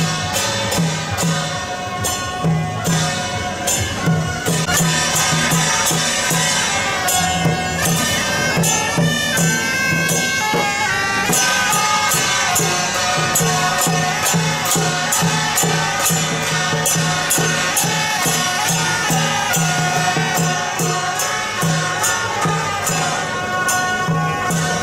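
Traditional Taiwanese procession music: suona horns playing a loud, reedy melody over a steady beat of cymbal clashes and gong strikes.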